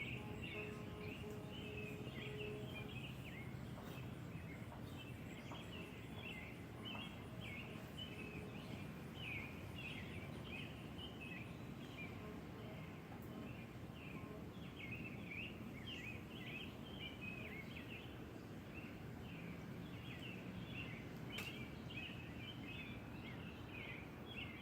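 Birds chirping in a continuous stream of short calls over a low, steady rushing background.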